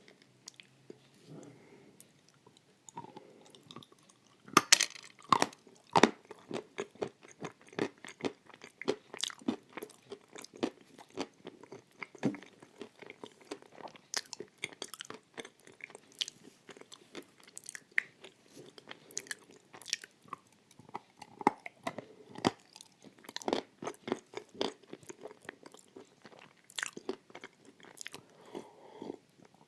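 Close-up chewing of crunchy edible clay: quiet at first, then rapid crisp crunches from about four seconds in, the loudest bites just after, carrying on steadily until near the end.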